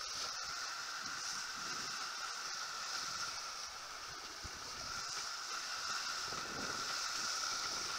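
Steady rush of water along a Farrier F-31 trimaran's hulls under sail, mixed with wind, with a few faint clicks from the deck gear.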